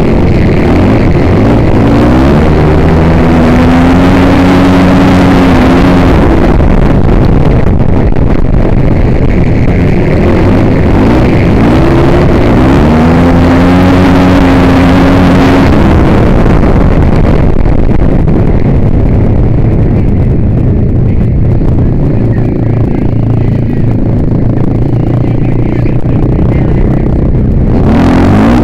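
Flat-track racing motorcycle engine heard from an onboard camera, revving up and holding high twice as the bike runs the dirt oval, with heavy wind rush on the microphone. After the second run the wind noise fades, the engine drops lower, and it rises briefly again near the end.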